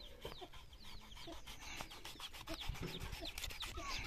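Chickens calling faintly: a scatter of short, falling chirps, with many light clicks and taps.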